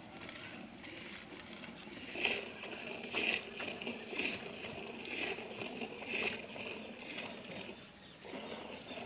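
Hand milking of a water buffalo: jets of milk squirt into a metal pot in a steady rhythm, one pull after another, growing plain about two seconds in.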